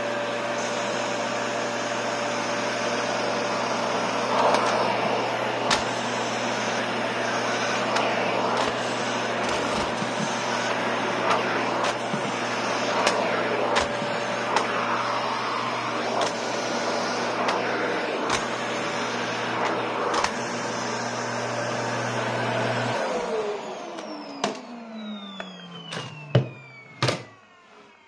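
A National 'Powerful & Compact' canister vacuum cleaner runs steadily as its floor head is pushed over carpet. About four-fifths of the way through it is switched off, and the motor winds down with a falling whine. A few sharp knocks come near the end.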